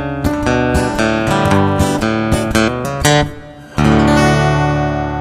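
Outro music on acoustic guitar: a quick run of plucked and strummed notes, then a final chord struck about four seconds in and left to ring.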